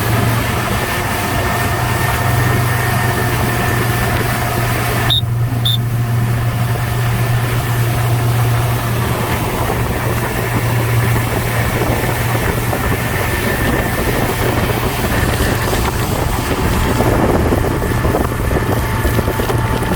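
Motorboat engine running steadily, a constant low hum with rushing noise over it.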